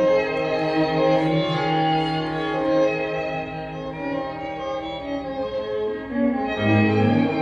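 Slow instrumental music of long, held notes, with a deeper bass note coming in near the end.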